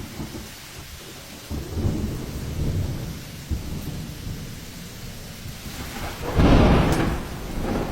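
Hurricane storm: rain falling with irregular low rumbling gusts of wind, and a much stronger gust about six and a half seconds in.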